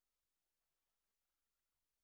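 Near silence: the soundtrack is essentially empty.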